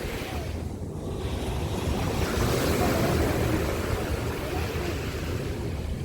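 Surf waves washing onto a beach, a steady rush that swells louder about two seconds in and eases off again toward the end.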